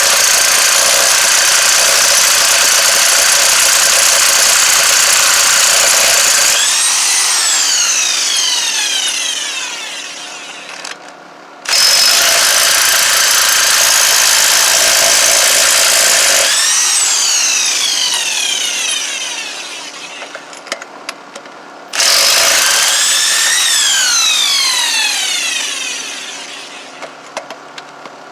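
Bauer 1/2-inch corded electric impact wrench running at full power on van lug nuts, then released so the motor winds down with a falling whine; it is pulled on again abruptly twice, each run ending in the same wind-down.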